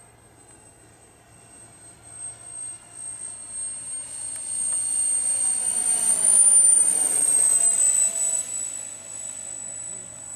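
Electric ducted fan of a 3D-printed RC jet model whining as it flies past overhead. The high whine builds, peaks about six and a half seconds in with a slight rise in pitch, then drops in pitch and fades as the model moves away.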